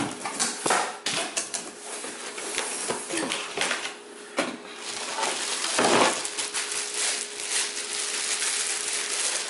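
Box packaging rustling and scraping as a cordless stick vacuum is unpacked, with many light clicks and knocks and one louder thump about six seconds in.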